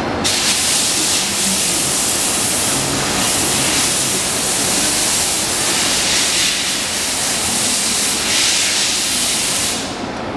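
Loud, steady hiss of rushing air that cuts in abruptly, swells and eases every couple of seconds, and fades out near the end.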